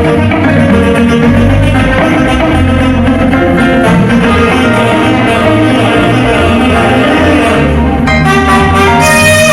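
Loud band music with a strong bass line and a saxophone playing.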